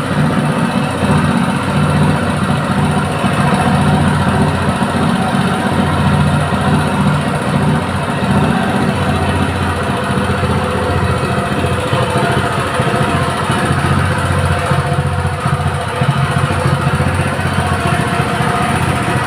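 Honda GX200 single-cylinder four-stroke engine running steadily on LPG fuel.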